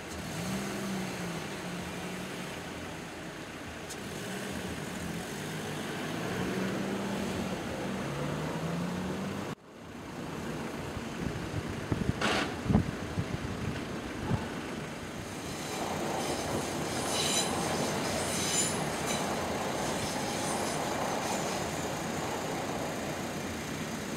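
Road traffic idling at a level crossing with the barriers down. After a few knocks, a train runs over the crossing in the second half, a steady rolling noise from about two-thirds of the way through.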